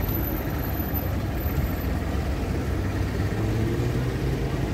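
City street traffic: a steady low hum of vehicle engines going by.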